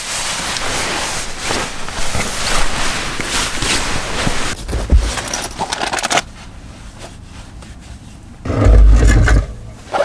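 Fabric rustling and scraping as a pillow and sleeping bag are stuffed and shuffled around. About six seconds in it gives way to quieter handling of a small fabric bag. Near the end comes a loud, low thump lasting about a second.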